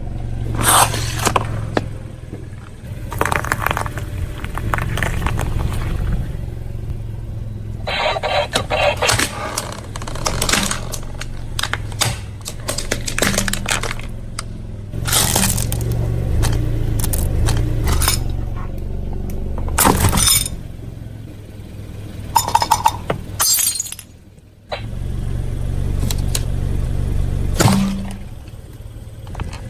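Car tyres rolling over and crushing brittle objects, with many sharp cracks, snaps and shattering crunches over the low, steady sound of the car's engine. The crunches come in clusters, and the sound breaks off briefly near the end before starting again.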